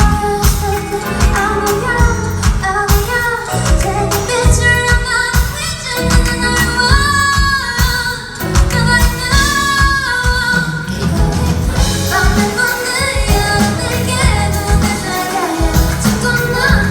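Pop song performed live: a singer's melody over a band with a steady drum beat and heavy bass.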